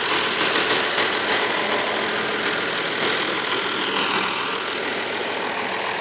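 Farm tractor's diesel engine running steadily as the tractor pulls a manure trailer past.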